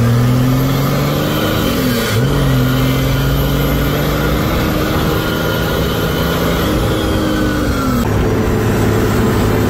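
Mercedes OM606 straight-six diesel engine under way, its pitch rising and falling with the throttle and dropping sharply then climbing again about two seconds in. Near the end it cuts to a steady engine note held at constant speed.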